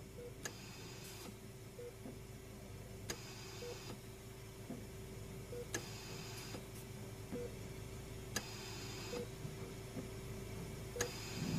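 Faint steady hum with a sharp tick about every two and a half seconds, five in all, and softer blips between the ticks.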